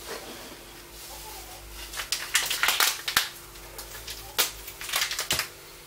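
Clear plastic BlenderBottle GoStak storage containers being handled: a run of sharp clicks and knocks with short rustling scrapes, starting about two seconds in.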